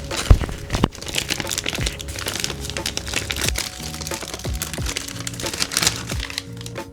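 Packaging crinkling and crackling continuously as it is handled and unwrapped, with a sharp knock just after the start, over soft background music. The crackle dies away near the end.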